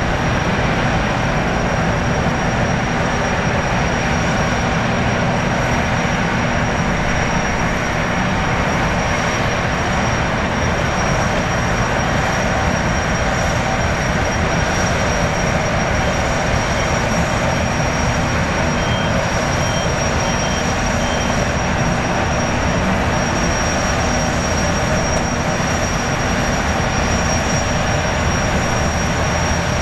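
Jetfoil's gas turbines running at the pier: a loud, steady rush with a thin, steady high whine over it.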